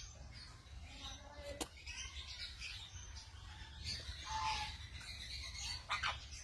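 Pet birds chirping faintly and on and off, with a few slightly louder calls near the middle and near the end, and a single sharp click about a second and a half in.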